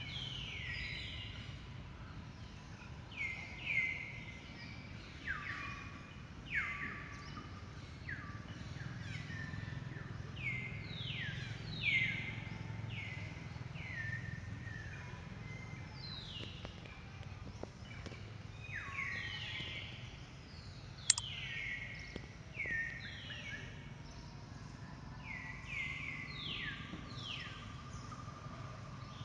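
Outdoor ambience of many birds calling: short calls, each sliding down in pitch, overlap one another throughout over a steady low hum. One sharp click comes about two-thirds of the way through.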